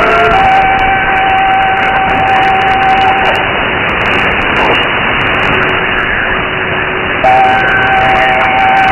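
Voice of Korea sign-on music received on shortwave in AM: a slow melody of long held notes buried in heavy static and hiss, with the thin, narrow sound of an AM receiver's filter. A new, louder note comes in near the end.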